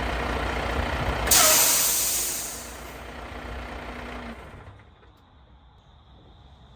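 Volvo dump truck's diesel engine idling, then a sudden loud air-brake hiss about a second in that fades over the next second or two. The engine stops about four and a half seconds in.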